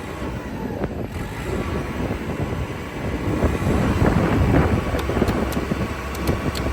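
A CAT 420E backhoe loader's diesel engine running and being throttled up, growing louder about three seconds in, then easing back. A few sharp clicks follow near the end.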